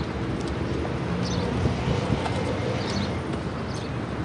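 Quad bike engines idling steadily, with short high chirps now and then.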